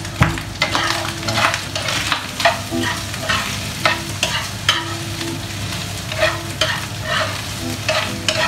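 Pork pieces sizzling in a frying pan while a spatula stirs and scrapes them around the pan, in quick strokes about two to three times a second.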